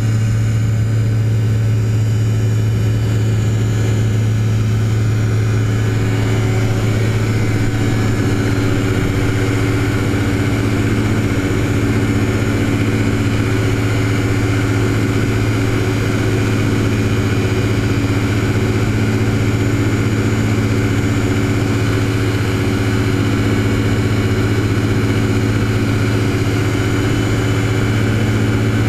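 Typhoon TL-32 ultralight aircraft in flight, its engine and propeller running with a steady, unbroken drone and a strong low hum.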